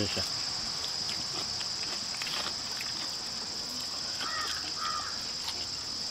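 Steady high-pitched chorus of insects droning without a break, with faint scattered ticks.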